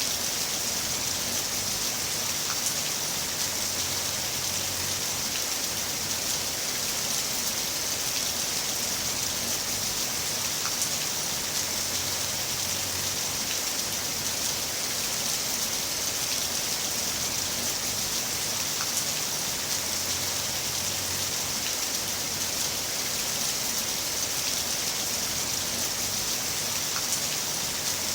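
Heavy rain falling steadily, an even hiss with a few sharper drop ticks now and then.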